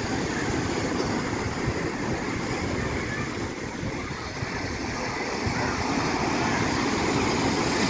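Sea surf washing in steadily, with wind buffeting the microphone; the surf swells louder near the end.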